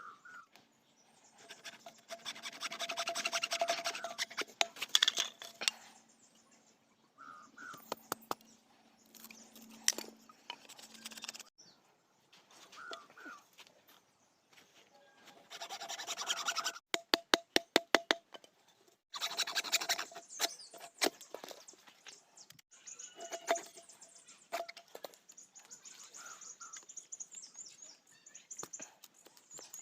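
Hand-tool work on bamboo: stretches of scraping and cutting noise broken by sharp clicks and taps, with a quick run of clicks about halfway through.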